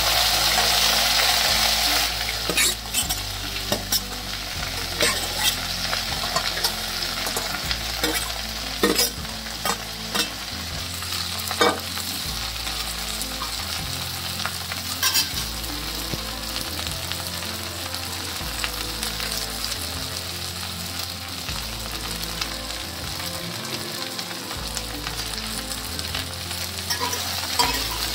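Chopped okra hitting hot oil in a kadhai and frying: a loud burst of sizzling for the first couple of seconds as it goes in, settling into a steady frying hiss with a few sharp clicks and pops.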